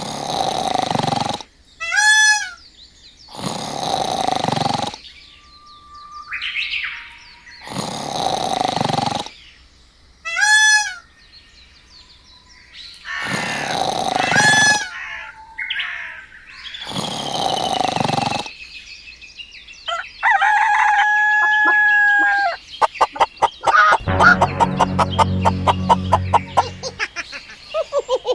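Chicken sounds: a rooster crows about five times, each crow lasting a second or so, with shorter chicken calls between the crows. Near the end comes a long run of rapid clucking.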